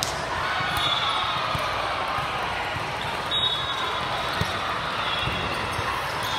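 Indoor volleyball court sounds: balls thudding off hands and the floor again and again, a few brief high squeaks like shoes on the court, over the steady din of a large busy sports hall.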